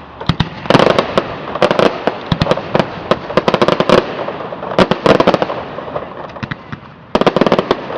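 Fireworks going off: rapid strings of sharp pops and crackling in three loud clusters, the longest in the first half, a short one about five seconds in, and another starting near the end.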